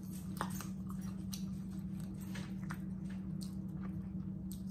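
Close-miked mouth sounds of people eating fried catfish: wet chewing and lip smacking, with many small clicks scattered throughout, over a steady low hum.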